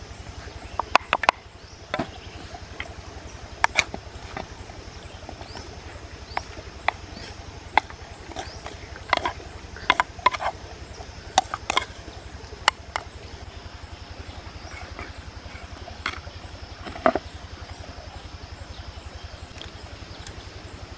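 Wooden spoon knocking and scraping against a clay mortar as papaya salad is scooped out into a clay bowl: a run of irregular sharp knocks and clicks.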